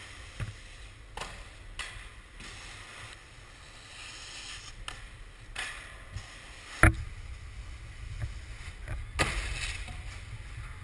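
Snowboards scraping and sliding over snow and a metal rail, with scattered knocks over a steady low rumble; a sharp knock about seven seconds in is the loudest, and a longer scrape follows a little after nine seconds.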